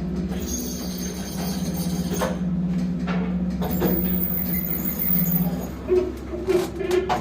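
Old Soviet passenger lift (Samarkand SamLZ, 1980) travelling with a steady low hum that stops about six seconds in, followed by a quick series of clicks and knocks as the car comes to a halt.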